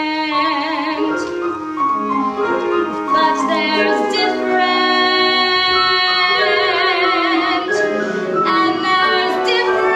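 A woman singing long held notes with vibrato over instrumental accompaniment, in a musical-theatre song.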